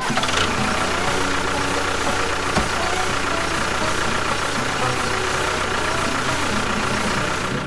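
A small motor running steadily, with a thin, even whine over its noise.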